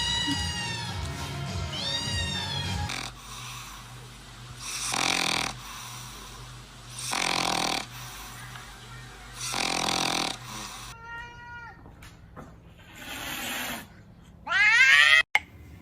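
A cat snoring in slow, regular breaths about every two and a half seconds, ending in a loud meow just before the end. Shorter meow-like calls come in the first few seconds.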